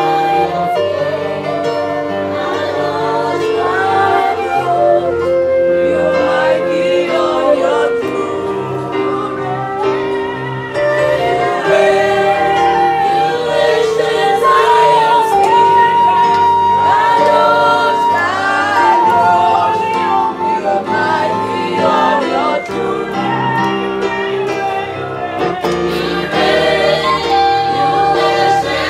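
Small gospel choir singing together to electronic keyboard accompaniment, several voices at once, with long held notes.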